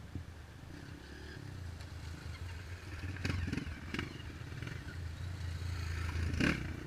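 Dirt-bike engine running at low revs, slowly getting louder, with sharp clattering knocks about three seconds in, again a second later, and a louder one near the end.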